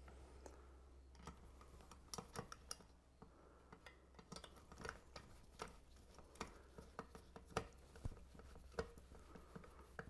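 Faint, irregular small clicks and ticks of a hand screwdriver driving screws into a ceiling fan's metal blade bracket, with the bracket knocking lightly against the motor housing.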